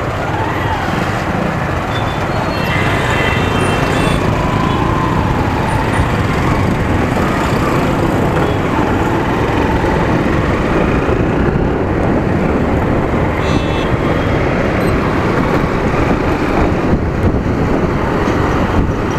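Riding a Honda motorcycle in traffic: steady rush of wind over the microphone mixed with the bike's engine and surrounding road traffic, getting a little louder as the bike pulls away from a junction. A few short higher-pitched sounds come through a few seconds in.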